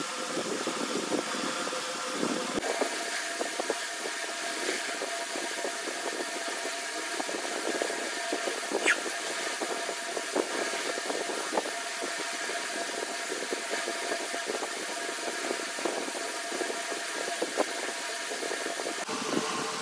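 Steady hum of an electric fan running, with faint scattered clicks.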